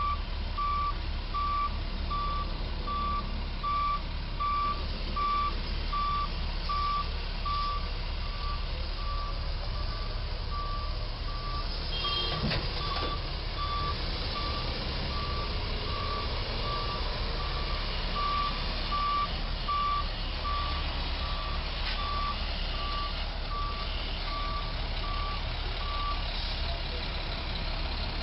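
Flatbed truck's reversing alarm beeping at a regular, even pace at one pitch as the truck backs up, over a steady low rumble; the beeping stops about 26 seconds in.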